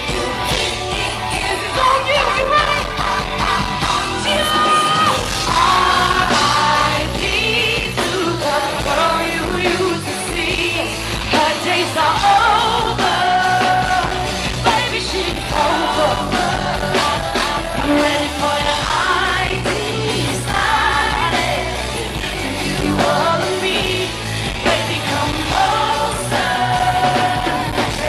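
Live pop song played loud over a venue PA, with a female singer's vocals over a heavy bass-driven backing.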